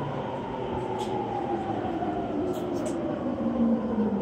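Interior running sound of a JR East E231 series 800 subseries train slowing into a station: a steady rumble with the whine of the traction motors gliding down in pitch.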